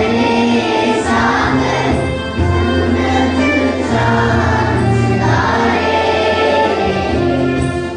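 A group of schoolgirls singing a song together into microphones, amplified over a PA in a hall, with long held notes.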